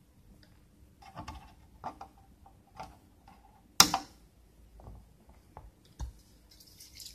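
Side cutters snipping off the excess leg of a through-hole capacitor on a circuit board: one sharp snip about four seconds in, among light clicks from handling the tool and board.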